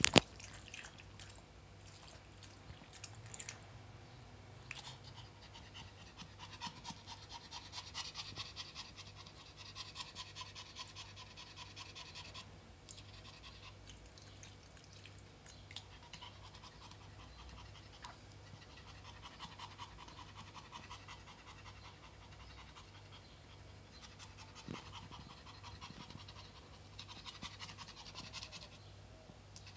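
Small Prague ratter dog panting fast and hard in quick gasps for air. The panting comes in spells that grow louder and then ease off. It is heat panting: the dog is overheated on a very hot summer day.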